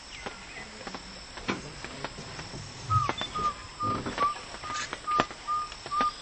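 An animal calling: a series of short, clear whistled notes at one steady pitch, about two to three a second, starting about three seconds in. Scattered small clicks and knocks run under it.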